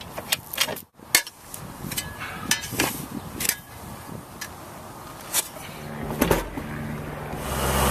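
Irregular sharp clicks and knocks, a few every second, over a low steady noise. Music fades in during the last couple of seconds.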